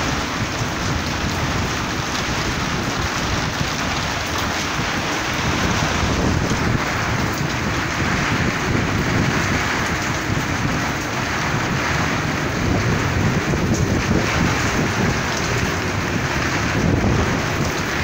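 Strong cyclone wind and heavy rain, the wind buffeting the phone's microphone; a loud, steady noise with no let-up.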